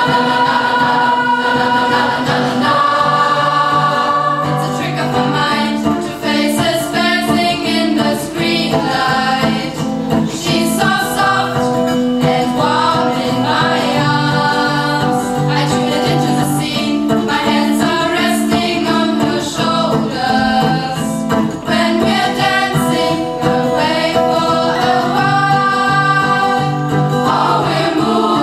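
School choir singing a piece in several parts, held notes moving in chords.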